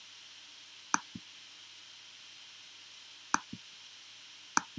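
Three sharp clicks, about a second in, a little after three seconds and near the end, each followed a moment later by a softer click, over a faint steady hiss.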